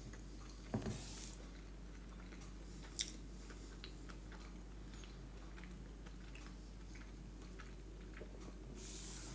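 A man quietly chewing a mouthful of soft stuffed sweet potato, with a few light clicks of a metal fork against the plate, the sharpest about three seconds in.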